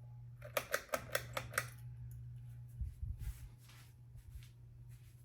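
Hunter low profile ceiling fan (Robbins & Myers era) running with a steady low motor hum, while a quick run of about six clicks from the pull-chain speed switch comes in the first two seconds as it is changed to medium. A brief low thump follows about three seconds in.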